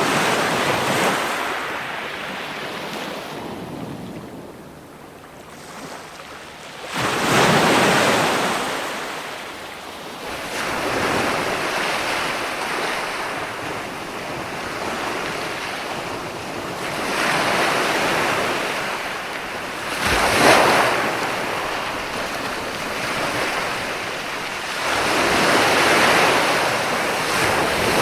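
Ocean waves breaking and washing up, in swells of surf every few seconds; one sharp crash about twenty seconds in is the loudest.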